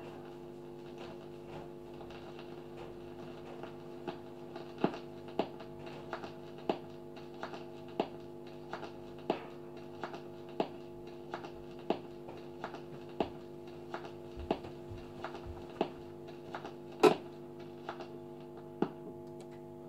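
Portable record player with a 45 rpm single turning and no music: the stylus rides the run-out groove, giving a click about every 1.3 seconds, once per turn of the record, over a steady electrical hum from the player. One click near the end is louder than the rest.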